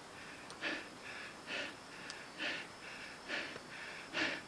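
A hiker breathing hard while climbing steep trail steps: a strong breath about once a second, with softer breaths between.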